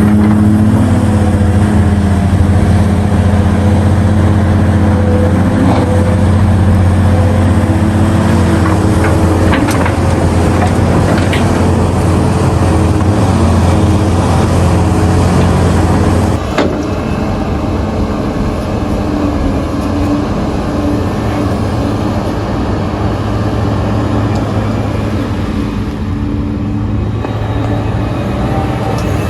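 Heavy diesel engines of mining excavators and dump trucks running, a steady low engine hum that changes abruptly about sixteen seconds in to a quieter, rougher machine rumble.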